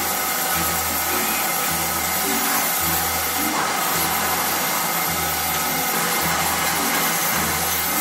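1959 Poręba TR55 lathe running while a large twist drill bores into the spinning metal workpiece: a steady, dense machining noise.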